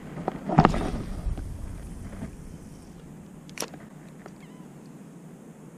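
Spinning rod cast out over open water: a whoosh about half a second in as the rod swings and the line flies out, then a single sharp click a few seconds later. A steady low rush of wind and water runs underneath.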